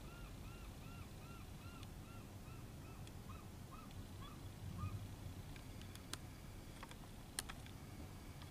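Gull calling: a steady series of short, evenly spaced notes, about two to three a second, that fades and stops about four seconds in. Two sharp clicks follow near the end, over a low background rumble.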